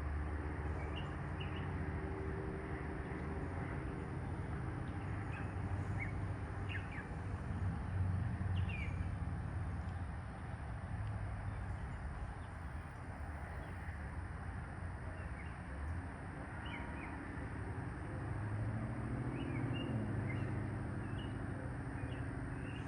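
Outdoor ambience: a steady low rumble with a faint hum that swells near the start and again near the end, and small birds chirping now and then.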